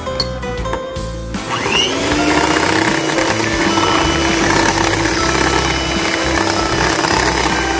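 Electric hand mixer switched on about a second and a half in, its motor whirring up to a steady speed as the twin beaters churn a liquid cream mixture in a glass bowl. Background music plays throughout, heard alone before the mixer starts.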